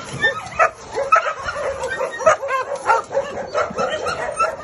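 Several dogs in shelter pens barking and yelping excitedly in quick, overlapping calls as they are offered a toy.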